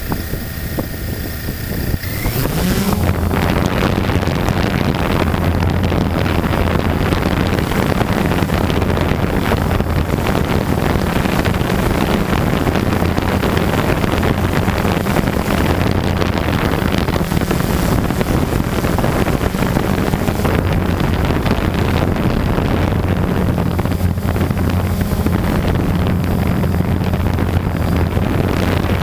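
Blade 350 QX quadcopter's brushless motors and propellers: quieter at first, then about two and a half seconds in they rise to a loud, steady hum that holds as it flies, with wind buffeting on the onboard camera's microphone.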